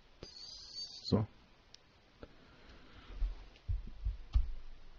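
Computer mouse clicks as a few thin ticks, and several dull low thumps on the desk in the second half, which are the loudest sounds; one short spoken word comes about a second in.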